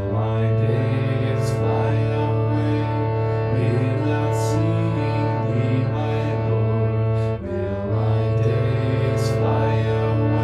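Slow instrumental music: a steady low drone with a sustained melody held over it, dipping briefly about seven seconds in.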